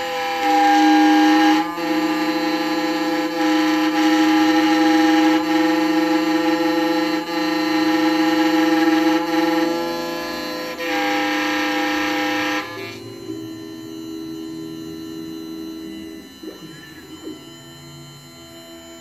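Electronic key-cutting machine milling a high-security laser-track (sidewinder) key blank for a 2008 Honda Accord: a steady motor whine with a cutting hiss over it. About two-thirds of the way through the hiss drops away, leaving a quieter whine.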